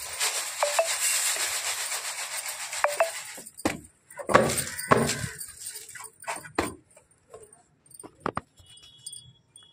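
Rice grains swishing and rattling in a woven bamboo winnowing tray (soop) as it is tossed and shaken to clean the rice. This goes on steadily for about three and a half seconds, then turns into a few louder knocks and scattered light taps.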